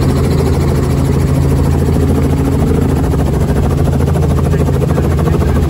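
Robinson R44 Raven II helicopter's six-cylinder piston engine and rotors running steadily on the ground, a loud drone heard from inside the cabin.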